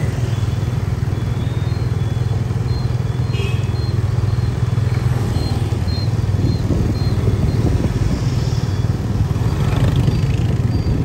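Motorbike engine running steadily with a low hum, heard from on the moving bike, with street traffic around.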